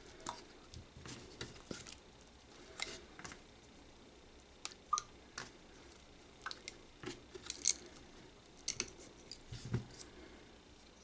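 Irregular small clicks and light taps of small hard objects being handled, with no motor running.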